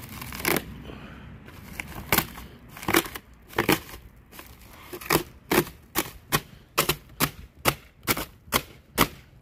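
Dull kitchen knife sawing at stretched plastic wrap on a toilet tank, a sharp crackling snap with each stroke. The first few strokes are irregular; from about five seconds in they come steadily, two to three a second.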